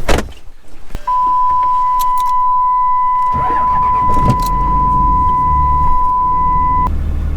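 A vehicle engine cranks and starts about three seconds in, then settles into a steady low idle. A steady, high electronic warning tone holds from about a second in until shortly before the end, and there is a click right at the start.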